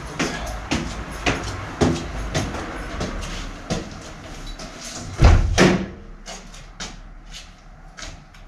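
Footsteps climbing a staircase with a bicycle carried along, knocking and rattling about every half second. A louder bang comes a little over five seconds in, followed by fainter clicks.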